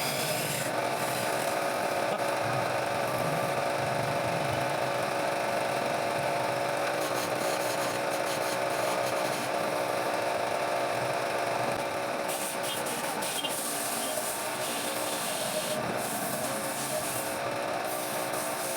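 Wood lathe running with a tool rubbing against the spinning wood: a steady scraping with a constant hum underneath. About twelve seconds in, the scraping turns hissier and brighter.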